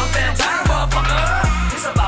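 Hip-hop beat with no rapping: deep bass notes, each starting with a hit that drops in pitch, under a melodic line and quick high ticks.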